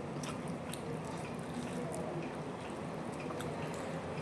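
Soft, wet eating sounds of a meal eaten by hand: scattered small clicks and smacks from fingers squishing and gathering rice and from chewing, over a steady background noise.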